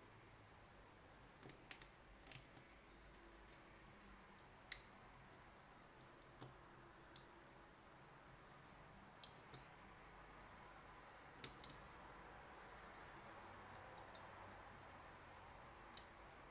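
Near silence broken by scattered faint clicks and light taps from small parts and tools being handled, with two louder clicks, one early and one about two-thirds through.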